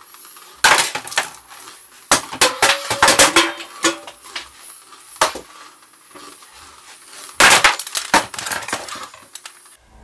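Homemade Arduino lightsaber (GyverSaber) playing its hit sound effects through its built-in speaker as the blade is swung and struck. Its accelerometer senses each hit and sets off a sound from the SD card. Sharp crackling clash sounds come in clusters: about a second in, again from two to four seconds, once near five seconds, and a dense burst around seven and a half seconds.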